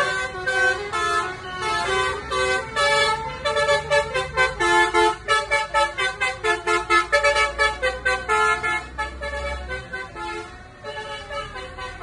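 Tour bus's 'telolet' multi-tone horn playing a rapid tune of short tooting notes, over a low engine rumble. The notes get quieter and sparser about ten seconds in.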